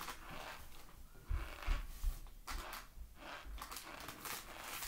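A paper bag of cornstarch rustling and crinkling irregularly as it is handled, with a few low bumps a little over a second in.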